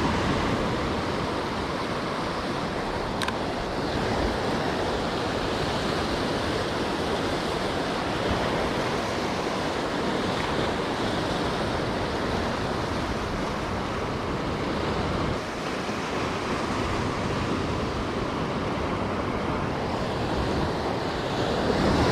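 Rough ocean surf washing steadily against a rocky shore, with some wind.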